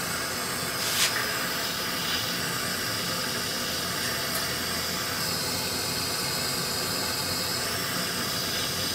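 Steady hiss of a gas torch flame heating a solder joint on a brass saxophone body until the solder flows, with a faint click about a second in.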